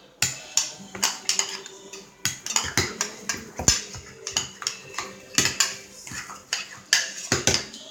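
Utensil stirring and scraping in a bowl of homemade glue-and-detergent slime, with many irregular clinks and scrapes against the bowl.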